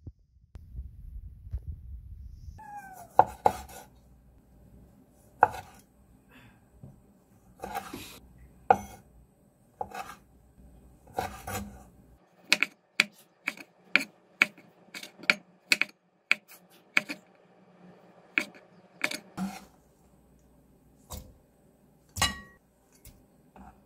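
Cleaver-style kitchen knife chopping cherry tomatoes on a wooden cutting board. Sharp knocks come scattered at first, then in a quick even run of about three chops a second, then a few more scattered ones near the end.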